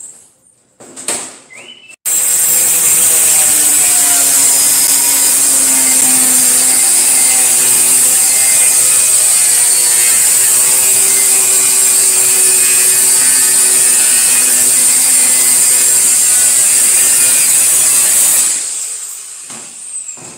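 A few light knocks, then a handheld angle grinder with a cut-off disc starts abruptly about two seconds in and cuts through sheet steel at full speed with a steady high whine for about sixteen seconds. Near the end it is switched off and winds down, its whine falling.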